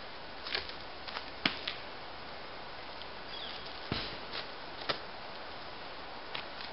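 A handful of short, sharp clicks and knocks at irregular intervals, the loudest about one and a half seconds in, over a faint steady hiss.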